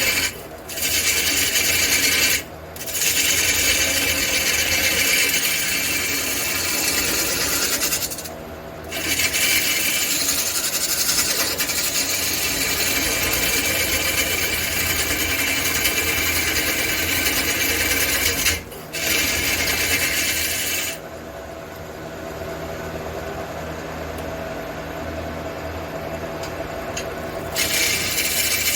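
Wood lathe spinning a large red cedar blank while a hand-held turning tool scrapes against the wood in long passes, with a few short breaks. For several seconds near the end the tool comes off the wood and only the lathe runs, more quietly, before the tool goes back on.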